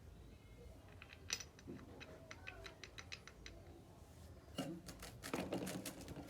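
Small metal clicks from an angle grinder and its disc fittings being handled: a quick even run of about six clicks a second, then a louder clatter of parts near the end.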